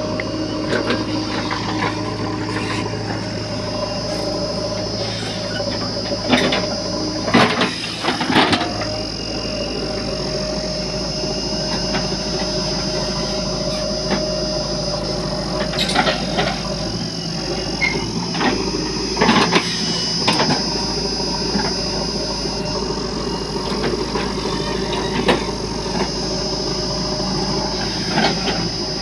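JCB 3DX backhoe loader's diesel engine running steadily while the hydraulics work the backhoe arm, with a constant high whine over it. Several sharp knocks and clunks come from the bucket digging into the soil and swinging its load.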